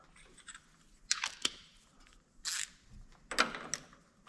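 Scattered clicks and short scrapes of hand work at a small engine's spark plug: the plug wire boot is pulled off and a ratchet socket on an extension is fitted onto the plug.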